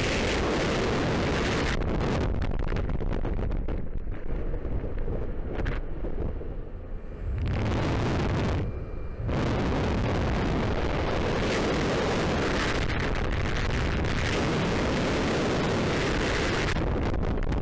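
Rushing freefall wind buffeting a skydiver's helmet-camera microphone. It eases off about four to seven seconds in and dips briefly around nine seconds in.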